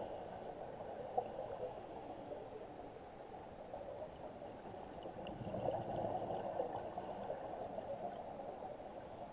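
Underwater gurgling of scuba divers' exhaled regulator bubbles, with a louder burst of bubbles about halfway through.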